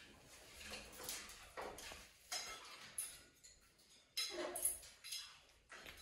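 Scattered light metallic clinks and rattles from a wire birdcage as animal claws grip and shift on its bars, loudest in a cluster about four and a half seconds in.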